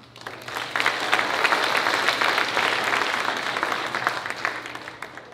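Audience applause: many hands clapping, building up within the first second and dying away near the end.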